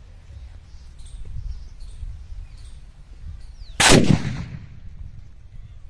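A homemade plastic-bottle bomb exploding with one sharp, loud bang about four seconds in, the blast dying away over about a second.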